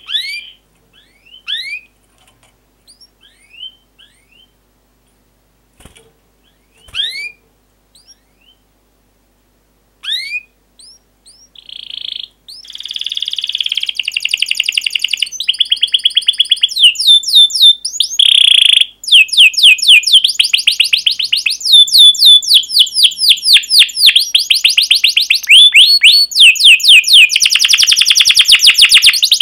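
Domestic canary singing. It opens with scattered single sharp rising chirps and pauses between them, then about twelve seconds in breaks into a loud, continuous rapid trill of repeated notes with a few brief buzzy passages.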